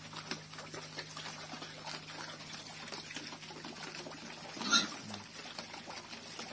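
Several pigs feeding from a tyre trough of wet mash, a steady mess of slurping, smacking and chewing. Just under five seconds in, one pig gives a brief loud squeal.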